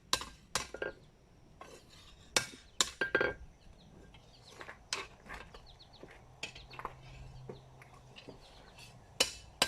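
Hammer striking steel on an anvil, forging a blade: a few loud ringing metallic blows at uneven spacing, with lighter clinks of metal on metal between them.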